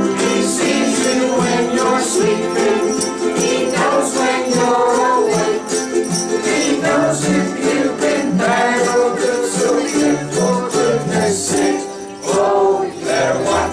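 Ukulele group strumming a Christmas tune together, with jingle bells ringing along.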